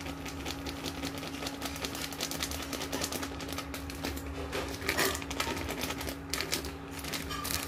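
Plastic packet of gram flour crinkling and crackling rapidly as it is tipped and shaken over a steel pot.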